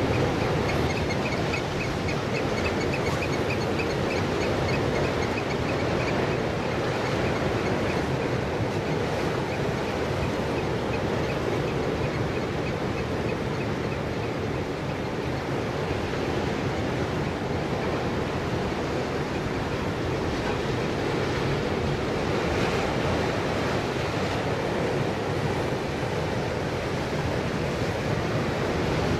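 Surf washing against the rocks and wind on the microphone, a steady rushing noise throughout. Over the first six seconds or so a rapid run of short high chirps sits above it.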